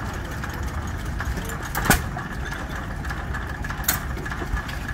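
1912 2 hp IHC Famous vertical hit-and-miss engine running, two sharp firing cracks about two seconds apart over a steady low engine rumble.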